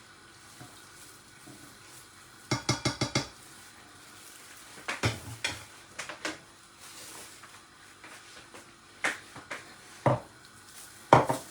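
A spoon stirring a hot drink and clinking against its container: a quick run of about six clinks a few seconds in, then scattered single knocks.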